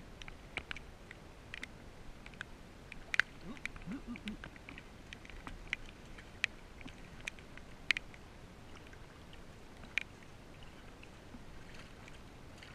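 Small splashes and scattered sharp ticks from a hooked rainbow trout thrashing in shallow creek water as it is landed by hand. A few of the ticks are louder, spaced a couple of seconds apart.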